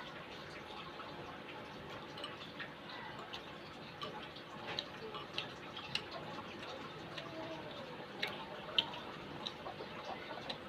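Eating sounds close to the microphone: irregular small clicks and smacks over a steady background hiss.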